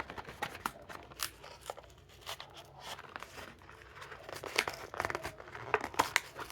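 A Hot Wheels card-and-blister package being torn open by hand: cardboard tearing and the plastic blister crinkling, in irregular crackles and clicks.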